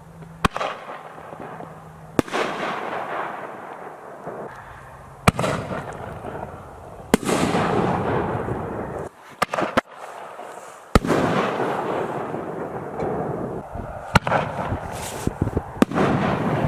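Consumer 60-gram artillery shells fired from mortar tubes: a series of sharp bangs every one to three seconds, launches and aerial bursts, each trailing off in crackle and hiss.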